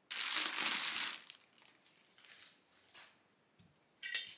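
Plastic packaging crinkling as it is handled, loudest for about the first second, then fainter rustles, with a short, brighter burst near the end.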